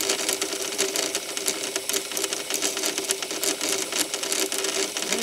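Red Sea ReefBot aquarium water-testing machine running with its needle in the testing chamber: rapid mechanical clicking over a steady hum.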